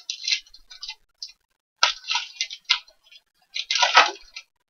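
Foil wrapper of a Panini Mosaic basketball card pack crinkling in the hands and being torn open, in irregular bursts of rustling. The loudest burst comes near the end.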